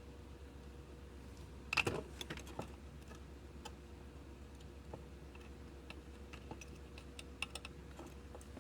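Light clicks and taps: a quick cluster about two seconds in, then sparse single clicks, over a steady electrical hum.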